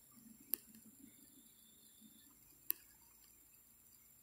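Near silence, broken by two short, sharp clicks about two seconds apart.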